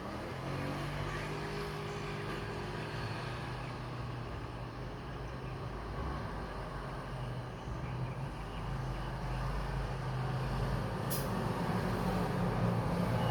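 A steady low engine rumble with a low hum, with one short click near the end.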